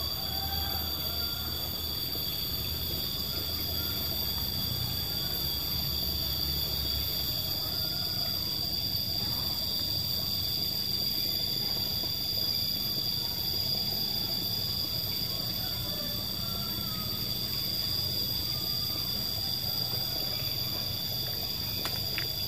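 Steady outdoor ambience by the stream: several held high-pitched tones whine together over a low rumble, with no clear single event.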